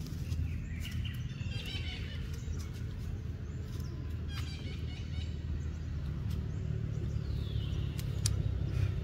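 Short high-pitched chirping calls in a few clusters, and one falling whistle-like call near the end, over a steady low rumble.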